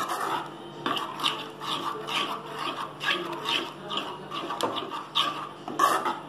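Steel spoon stirring thick masala gravy in a stainless steel kadai, scraping metal on metal in repeated strokes, about two or three a second.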